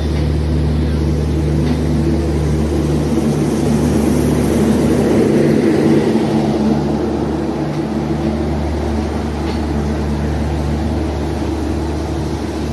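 LHB passenger train pulling out, its last coaches and rear generator power car rolling past at low speed. A steady diesel-generator drone runs throughout, and a heavier rumble swells about halfway through as the louvred power car passes close.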